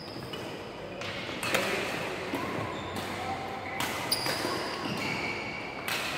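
Badminton rally: several sharp racket strikes on a shuttlecock, with short high squeaks of court shoes on the wooden floor between them, echoing in a large hall.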